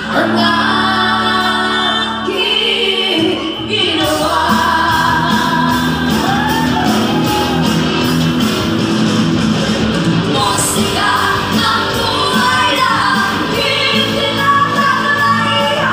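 Live pop-rock band: two female singers over electric guitars and keyboard, played loud through a PA. A steady beat comes in about four seconds in.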